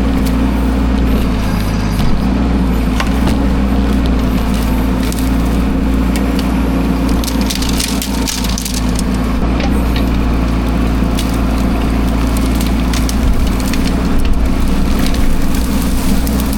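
A steady engine running throughout, with frequent cracking and snapping of woody material over it.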